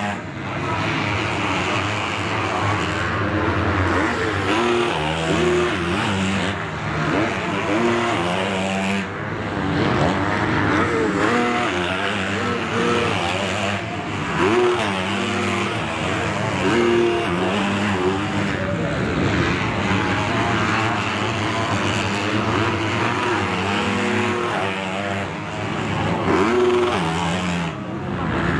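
Several motocross bike engines revving on the track, their pitch climbing and dropping again and again with throttle and gear changes.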